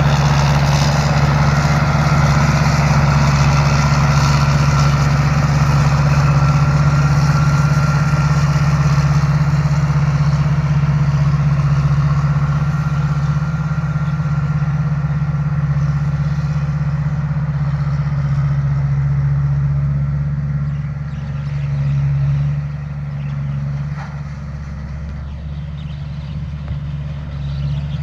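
Rice combine harvester's diesel engine running steadily with a deep drone and a faint high whine at first. The sound steps down in loudness about twelve seconds in and again around twenty-two seconds.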